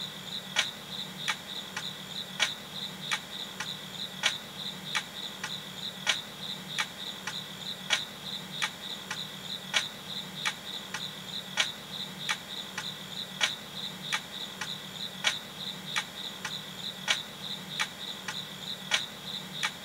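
Crickets chirping steadily in a continuous pulsing trill. A sharp tick repeats about every 0.6 s throughout, with a faint low steady hum underneath.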